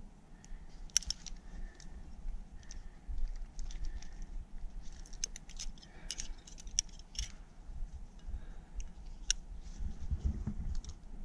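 Metal climbing gear clinking on a harness while a climber moves up the rock: scattered sharp clicks and jingles, bunched about a second in, in the middle, and once near the end, over a low rumble.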